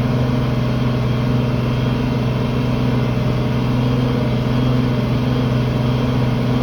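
Tractor engine running at a steady speed under load while pulling a field cultivator, a constant low hum with no change in pitch.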